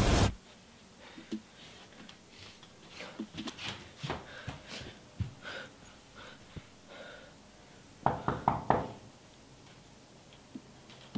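Knocking on a wooden door: a quick series of about four or five raps about eight seconds in. Before the knocks, background music cuts off at the start, followed by faint scattered clicks and rustles.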